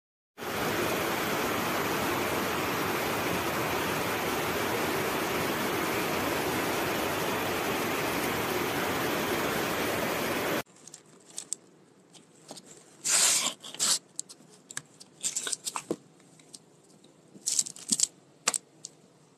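A loud, even hiss for about ten seconds that cuts off abruptly, followed by quieter plastic wrapping crinkling in several short bursts.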